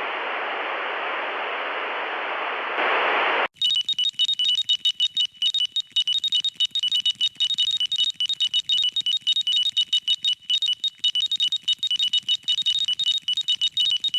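Static-like hiss for about three and a half seconds. It cuts off into a harsh emergency-alert signal: two high steady tones chopped rapidly on and off over a stuttering electronic buzz.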